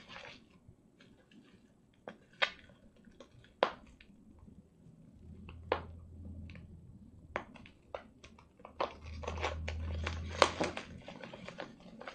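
Plastic bubble-wrap packaging being handled and unwrapped, giving a string of short crinkles and clicks. A low hum comes in twice, around the middle and again near the end.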